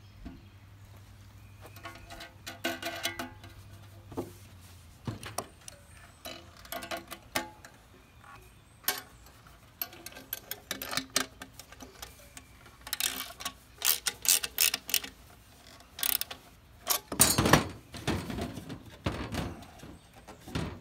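Tin-can hobo stove being fitted with bolt legs: a hand wrench turning the nuts, with irregular metallic clicks and clinks and the thin can ringing briefly. Near the end comes a run of louder knocks and handling as the can is shifted on the metal table.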